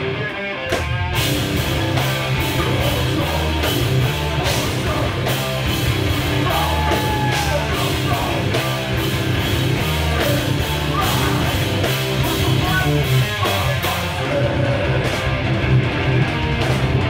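Live heavy rock band playing loud: distorted electric guitars, bass and a drum kit with crashing cymbals. After a brief drop the full band comes back in about a second in.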